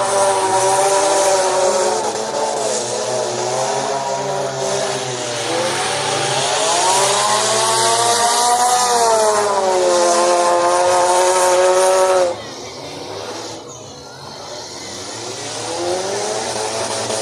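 Demolition derby car engines revving hard, the pitch rising and falling again and again over a haze of noise. It drops off suddenly about twelve seconds in, then revving climbs back near the end.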